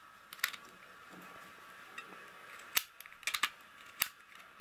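Tiger hand-held sewing machine squeezed stitch by stitch through fabric: about five sharp mechanical clicks at uneven intervals, one near the start and the rest bunched in the second half.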